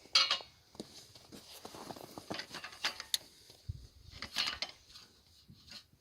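Irregular clattering, knocking and scuffing, with a sharp knock just after the start and a louder cluster about four and a half seconds in.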